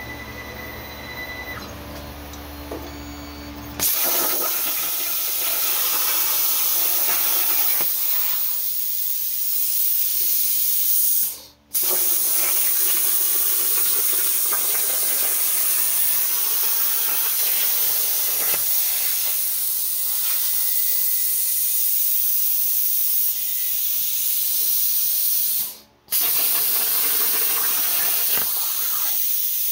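Plasma cutter on a CNC table cutting sheet steel. After a few seconds of quieter low hum, the arc comes on with a sudden loud, steady hiss. The hiss cuts out for a moment twice and starts again each time.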